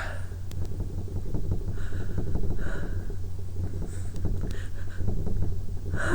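A woman breathing in short, soft breaths in the seconds after a sneeze, over a low steady rumble.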